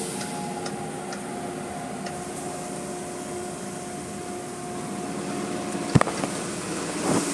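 Automatic car wash machinery running, heard from inside the car: a steady hum with water washing over the glass, and a single sharp knock about six seconds in.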